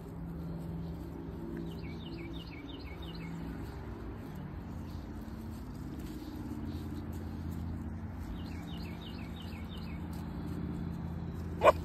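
A songbird singing two quick runs of short falling chirps, a few seconds apart, over a steady low rumble.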